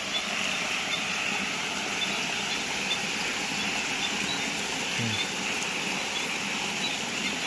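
Steady night chorus of calling frogs and insects after rain: a dense, even din with faint high chirps over it.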